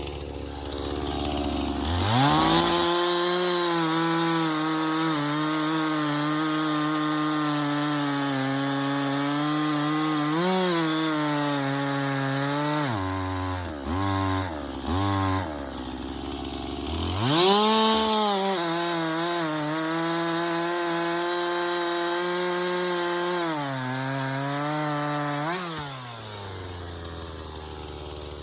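Husqvarna two-stroke chainsaw cutting a sycamore trunk. It revs up from idle and holds high with its pitch wavering under load. About halfway it drops back and gets a few quick throttle blips, then revs up for a second long cut before settling back to idle near the end.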